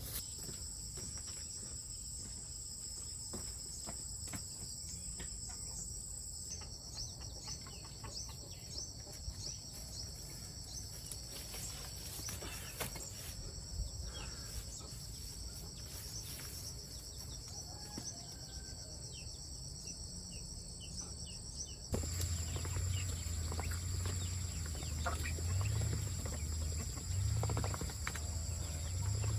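Chickens clucking among scattered short bird calls, over a steady high hiss. About two-thirds of the way through, the sound changes abruptly and a louder low rumble comes in.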